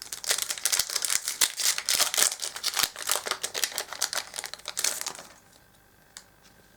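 Foil wrapper of a Yu-Gi-Oh! Duelist Alliance booster pack crinkling and tearing as it is opened: a dense crackle that stops about five seconds in.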